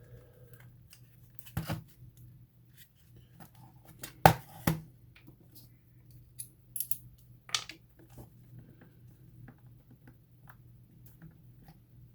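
Scattered clicks and knocks of a tire inflator's plastic casing being handled and pried at while its end caps are worked loose. The loudest is a sharp knock about four seconds in.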